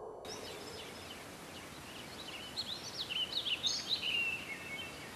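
Forest ambience: a steady hiss of outdoor background with birds chirping, a flurry of short chirps in the middle.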